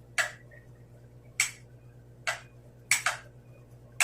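A series of five sharp clicks, roughly a second apart, with two in quick succession about three seconds in, over a faint low hum.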